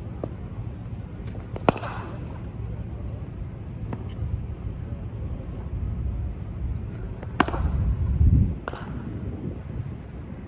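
Cricket bat striking balls in practice nets: two sharp cracks, about two and seven seconds in, with fainter knocks in between, over a steady low rumble like wind on the microphone.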